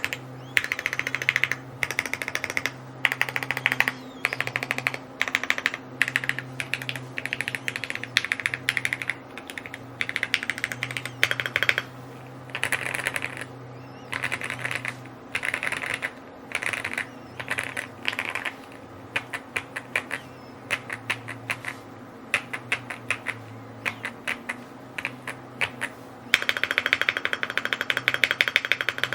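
Typing on a Rainy75 mechanical keyboard: fast runs of key clicks in bursts of a second or two with short pauses, turning into one continuous run near the end. A faint steady low hum lies underneath.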